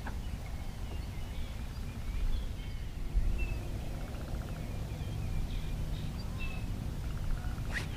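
Birds calling with short, scattered chirps and whistles over a low steady rumble.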